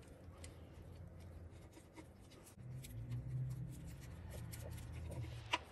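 Socket wrench on a long extension tightening the transmission oil pan bolts: faint, scattered ratchet clicks, a low hum through the middle, and one sharper click shortly before the end.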